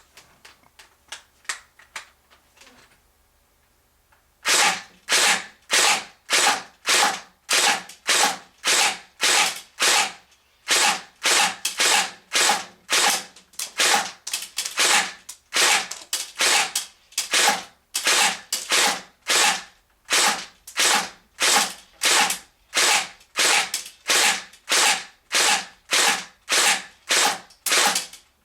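CSI MP5 SD6 electric airsoft gun (AEG) firing single shots in semi-automatic, each pull giving a sharp mechanical shot, at about two shots a second in a long, even string with one brief pause. A few fainter clicks come before the firing starts.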